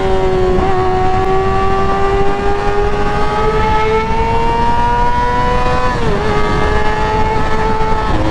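Kawasaki ZX6R's inline-four engine through an M4 GP exhaust, under way: the revs climb steadily for about five seconds, then the pitch drops sharply about six seconds in as it shifts up, and the engine holds a steady lower note.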